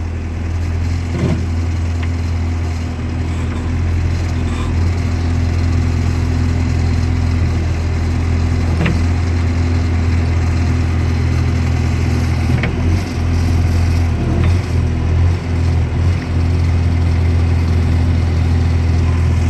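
Skid steer engine running steadily at a constant speed, with a brief unsteady patch of wavering level about two-thirds of the way through.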